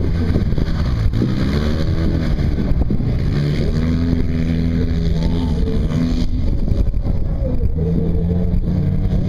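Polaris RZR side-by-side's engine revving hard as it runs a dirt course, its pitch rising and falling again and again as it accelerates out of turns and backs off, over a steady low engine hum.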